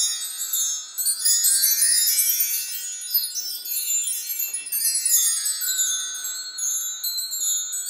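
Bar chimes (a mark tree of small metal rods on a wooden bar) swept by hand, a cascading run of bright, high ringing tones. A second sweep comes about five seconds in, and the rods ring on between sweeps.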